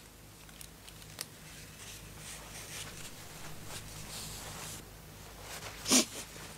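Quiet room tone with a low steady hum and soft cloth rustling as a handkerchief is wiped across a face. A short sharp noise comes about six seconds in.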